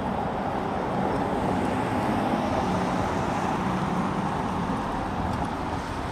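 City road traffic: a steady wash of passing vehicles and engines.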